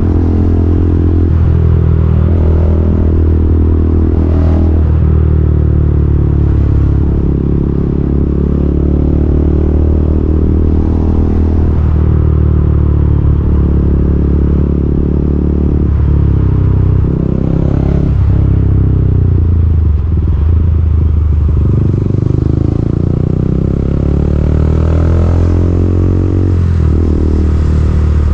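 KTM Duke 200's single-cylinder four-stroke engine running on the move, its pitch rising and falling several times as the revs change.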